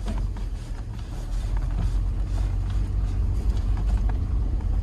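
Steady low rumble of a vehicle driving along.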